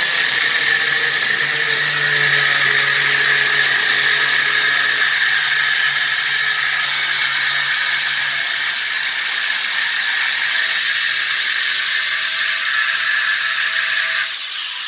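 Electric angle grinder running steadily with a high whine, its disc grinding a brown coating off a plastered wall. It shuts off abruptly just before the end.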